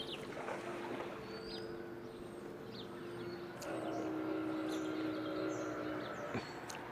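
Steady hum of a boat motor that shifts pitch about three and a half seconds in and fades out about six seconds in, with birds chirping over it.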